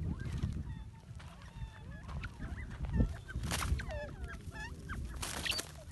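A covey of partridge-like game birds calling on the ground: many short squeaky chirps and bending whistled notes, overlapping throughout. Two brief hissing bursts come about three and a half and five seconds in.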